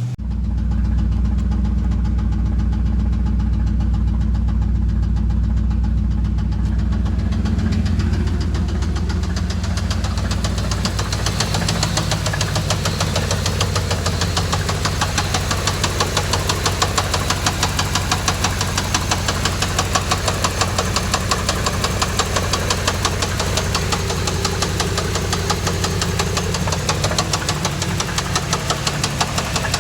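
1987 Chevrolet Camaro IROC-Z V8 engine running with a rhythmic knock, which becomes plainer and more clattery about a third of the way through. Mechanics take the knock for a sign that the engine needs replacing.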